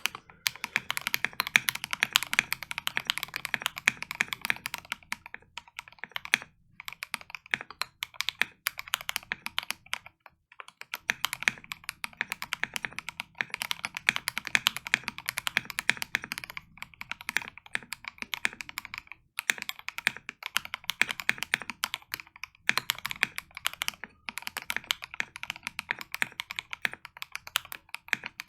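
Fast continuous typing on a Melgeek Mojo68 mechanical keyboard with lubed Gateron Pro Yellow linear switches and ASA-profile keycaps: dense, rapid keystroke clacks with a few brief pauses, the longest about ten seconds in.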